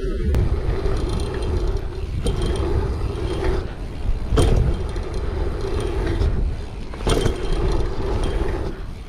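Mountain bike riding a dirt jump line: wind buffeting the bike-mounted camera's microphone and tyres rumbling over hard-packed dirt, with sharp thumps from landings, about four and seven seconds in.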